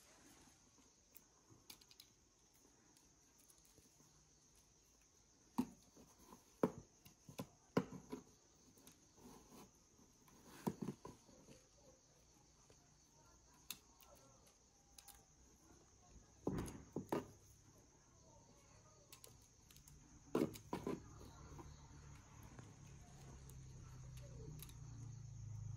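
Scattered light taps, clicks and scratches as a kitten bats and bites at a metal pen and paws the cardboard shoebox it sits on, some in quick clusters, over a faint steady high-pitched whine.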